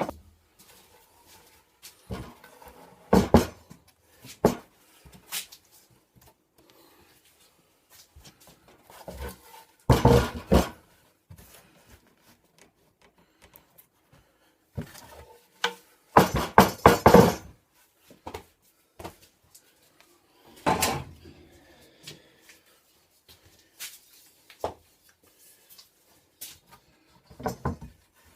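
Irregular knocks, clatter and rustling of tools and wood being handled, in bursts of a second or two with quiet gaps between.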